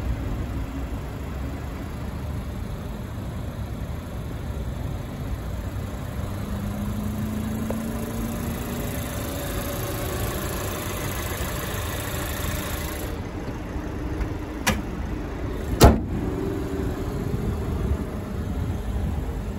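Steady low rumble of vehicle and outdoor noise, with a faint rising tone partway through. Near the end come a sharp knock and, about a second later, a louder thump.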